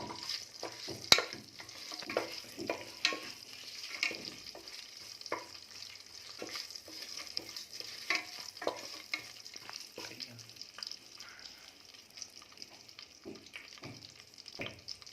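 Whole spices (cinnamon, cloves, fennel) sizzling in hot Dalda in a pressure cooker, a steady frying hiss with a spoon clinking and scraping against the pot as they are stirred; a sharp click about a second in.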